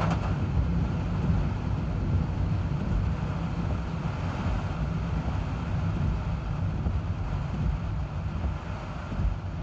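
Steady low rumble of a car driving, with an even hiss of wind and road noise from the typhoon's storm. A short click right at the start.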